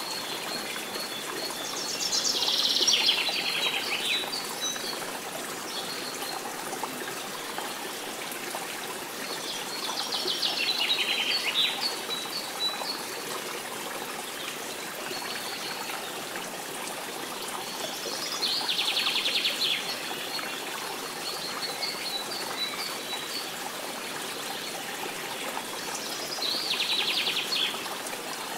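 Birdsong over a steady rush of flowing water: a fast-trilled bird phrase comes four times, about every eight seconds, with thin high chirps in between.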